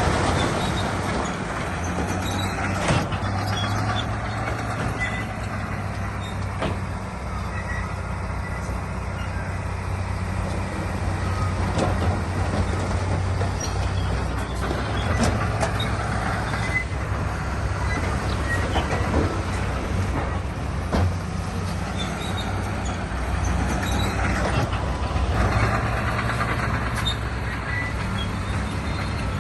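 Heavy diesel earthmoving machinery running steadily under load, with scattered sharp clanks and knocks. The engine swells louder a few seconds in and again near the end.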